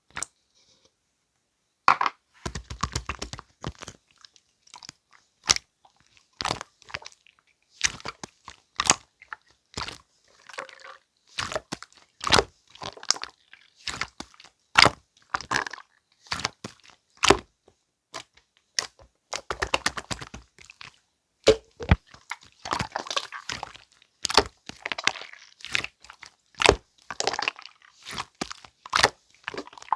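Clear jelly slime being squeezed and poked by hand, giving a rapid, irregular run of wet pops, clicks and squelches after a near-silent first two seconds.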